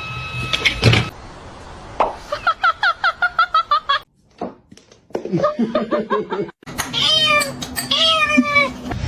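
Cat meowing: a fast run of short meows, about four a second, then two longer, drawn-out meows near the end.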